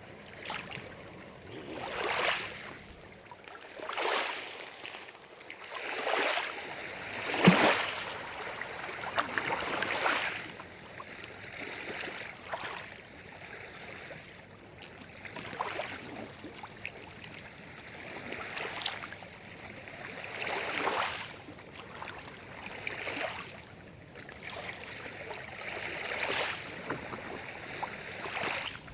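Lake water lapping and splashing in swells that rise and fall roughly every two seconds, with one sharp click about a third of the way through.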